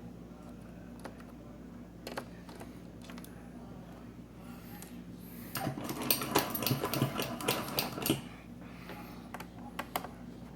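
Small hand tools and laptop parts clicking: scattered light clicks, then a dense run of rapid clicking and rattling lasting about two and a half seconds, from roughly halfway in.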